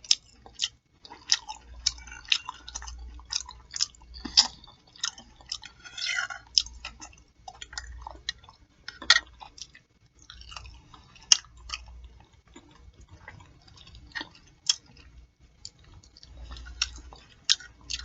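Close-miked chewing of pork chop with the mouth open: wet lip and tongue smacks and clicks, coming irregularly, sometimes several a second.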